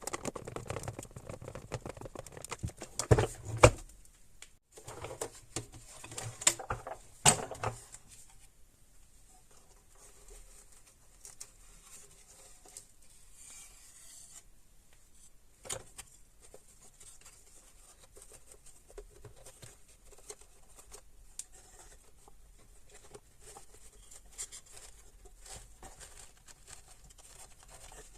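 Hands working on the parts of a small handheld vacuum: sharp clicks and knocks in the first few seconds, loudest about three and seven seconds in, then quieter scratching and rubbing with an occasional click.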